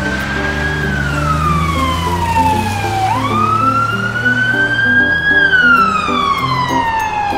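Ambulance siren sound effect wailing in one slow rise-and-fall cycle: the pitch falls, jumps back up about three seconds in, climbs, and then falls again near the end. Light music plays underneath.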